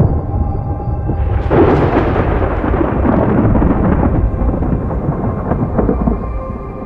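A thunderclap cracks about a second and a half in and rolls on as a long rumble that slowly fades, over low sustained ambient music.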